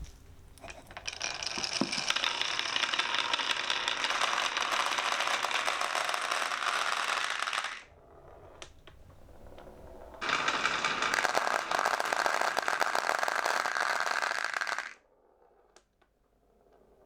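Glass marbles rolling down a wooden HABA marble run, a dense fast clatter of wood and glass in two long stretches that each cut off suddenly, with a few single clicks in the pause between.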